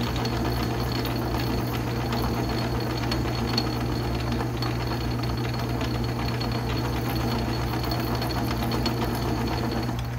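Atlas metal lathe running in back gear while a 3/32-inch parting blade cuts steadily into a bar of 4140 steel: an even machine hum with a thin high whine and faint fine ticks. The cut runs smoothly without chatter, the result of freshly re-shimmed babbitt headstock bearings.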